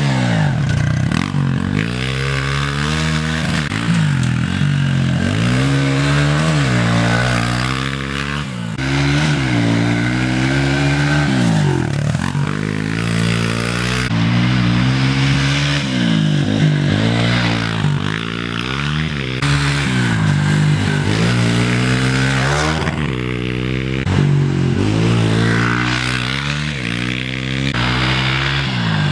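Pit bike engine revving up and backing off over and over as the bike laps a dirt track, its pitch climbing and dropping every second or two.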